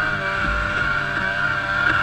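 800 E-TEC two-stroke engine running with a steady, whining hum, with a brief dip in pitch about half a second in; the engine is misfiring.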